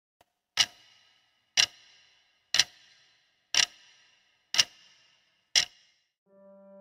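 Clock ticking: six crisp ticks, one each second, each with a brief metallic ring. Soft piano music fades in just before the end.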